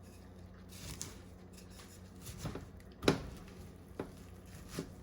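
Salad spoons scraping through baked spaghetti squash, pulling the flesh into strands: a handful of short scrapes and light clacks, the loudest about three seconds in.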